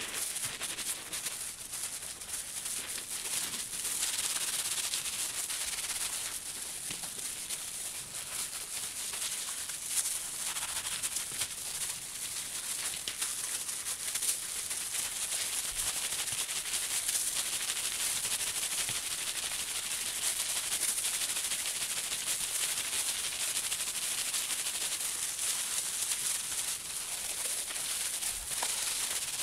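Hands in plastic gloves rubbing and kneading a wet, soapy Karachay-wool felt slipper against bubble wrap while fulling the felt: a steady, high rustle of plastic with many tiny crackles.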